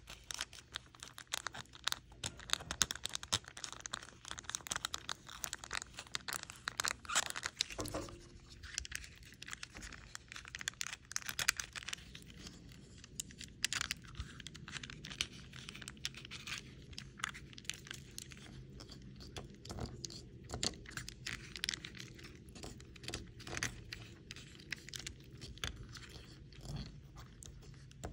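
Clear packaging tape crinkling and crackling under fingertips as wet paper is rubbed off its sticky side, in dense irregular crackles, with a soft knock about eight seconds in.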